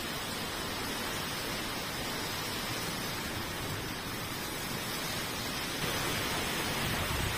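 Heavy rain and storm-force wind, a steady hiss that gets slightly louder about six seconds in.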